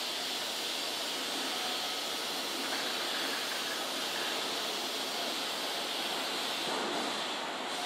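Steady hiss from a Keihan 13000 series electric train standing at a station platform, mixed with the platform's background noise.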